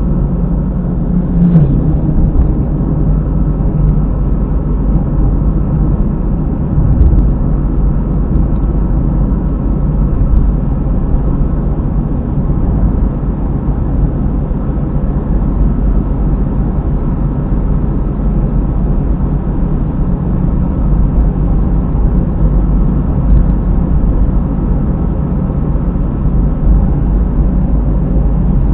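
Honda car driving, heard through a dashcam inside the cabin: steady road and tyre noise with a low drone from near a rear wheel, which the owner takes for a failing hub bearing.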